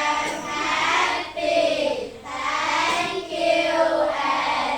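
Children singing together in long held notes, phrase after phrase with short breaks between.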